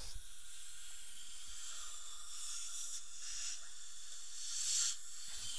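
Dental suction hissing steadily, swelling louder twice: about two seconds in and again near the end.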